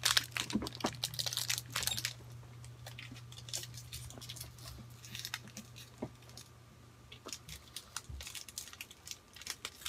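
Plastic wrapper crinkling and a bite into a hard, chewy oat flapjack bar for about two seconds, then close-up chewing with scattered small crunches and clicks. The bar is very hard to chew.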